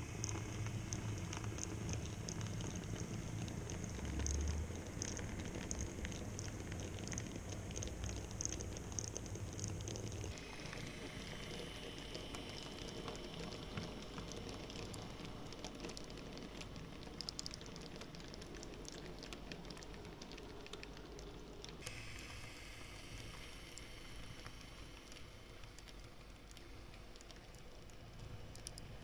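N-gauge model railway vehicles running: a steady, fine rattle and ticking of small wheels on track with the faint whine of their small electric motors. The sound changes abruptly about ten seconds in and again a little past twenty seconds.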